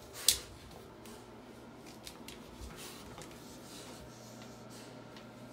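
Rottweiler puppy wriggling and pawing against the sides of an empty acrylic bathtub: one short, sharp scuff just after the start, then faint scuffling over a low steady hum.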